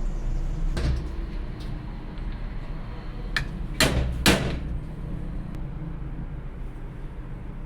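A few sharp knocks of a tool on metal car parts, the loudest two about half a second apart near the middle, each ringing briefly, over a steady low hum.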